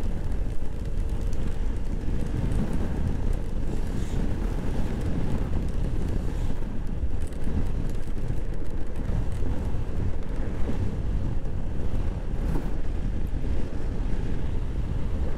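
Steady wind rumble buffeting the microphone while a Honda PCX scooter rides at speed on a wet road, with the scooter's running noise underneath.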